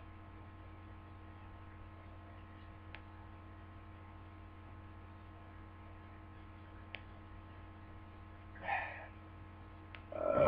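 Steady electrical mains hum with a few faint clicks, then near the end a soft breathy exhale and a short louder vocal sound from the man finishing a drink.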